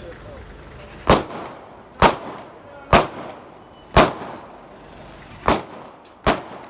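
Six single gunshots fired one after another, roughly a second apart, each a sharp crack with a short tail.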